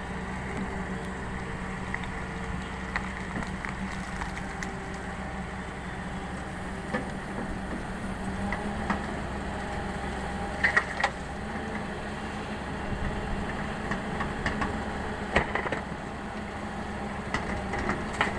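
Hyundai 220LC crawler excavator's diesel engine running steadily as it digs and swings a bucket of soil, with a few sharp knocks and clanks from the bucket, the loudest about ten and a half seconds in and again around fifteen seconds.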